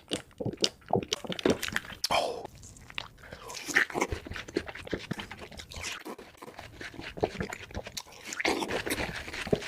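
Close-up eating sounds: frozen fruit being bitten and chewed in a dense run of sharp crunches and crackles.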